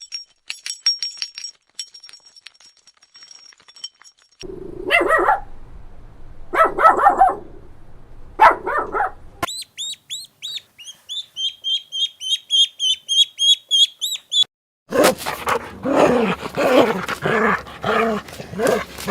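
A string of different animal calls cut one after another: faint clicking, then three separate calls, then a rapid high chirping at about four a second, then a dense run of overlapping calls near the end.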